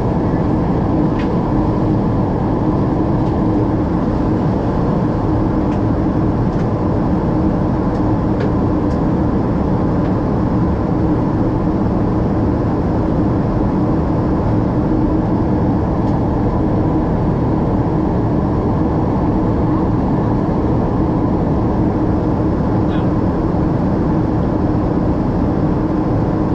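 Steady engine and airflow noise inside the cabin of a Boeing 777-200ER with Rolls-Royce Trent 892 engines during descent, with a steady low hum running through it.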